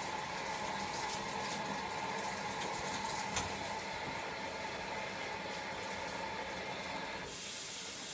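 Kitchen tap running into a sink as a fork is rinsed under the stream, a steady rush of water. The hiss of the water thins out about seven seconds in, with a faint click about three seconds in.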